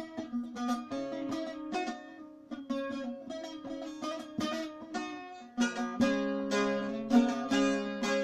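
Bağlama, the Turkish long-necked saz, picked with a plectrum: a folk melody of quick plucked notes over steadily ringing drone strings. The playing grows louder and fuller, with heavier strumming, about six seconds in.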